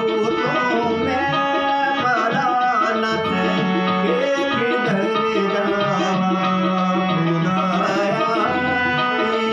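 Harmonium played in held chords while a man sings an Urdu devotional song over it, his voice rising and falling in long melodic phrases. A drum keeps the rhythm underneath.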